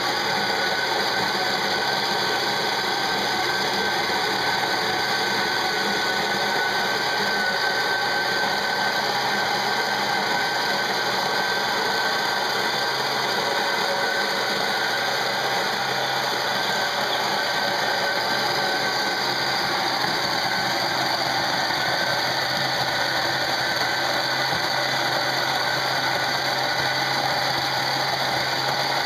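Electric coffee grinder grinding coffee beans, running loud and steady at a constant pitch.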